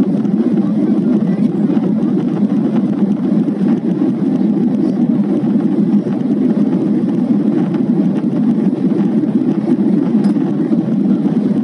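Steady roar of a jet airliner's engines and rushing air, heard inside the passenger cabin in flight shortly after takeoff. The noise holds at an even level throughout.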